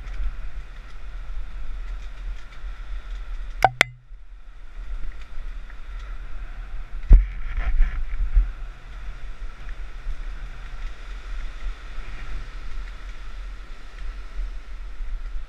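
Mountain bike descending a trail, heard on the rider's camera: steady wind rumble on the microphone and the hiss of riding. There are two sharp clicks just under four seconds in, then loud knocks about seven and eight seconds in.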